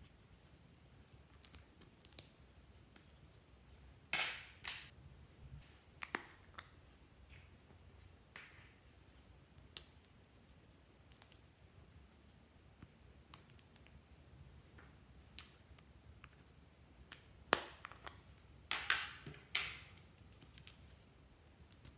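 Small plastic clicks, taps and short scrapes as a plastic stick digs into a small plastic container and the container is handled. Most are faint, with a few louder scrapes, two about four seconds in and a cluster near the end.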